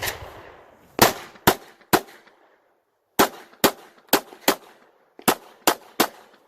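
Glock 34 9mm pistol firing a quick string of shots, about eleven sharp cracks roughly half a second apart in groups of two to four with short pauses between.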